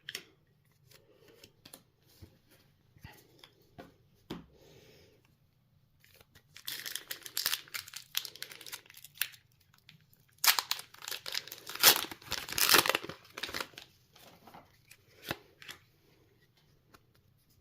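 A Pokémon trading-card booster pack wrapper being torn open and crinkled by hand: faint handling clicks at first, then two spells of loud tearing and crinkling about six and ten seconds in.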